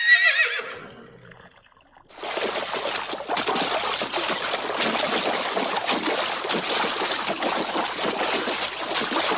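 A short warbling tone that falls in pitch at the very start, then, after about two seconds, a steady rush of running, splashing water.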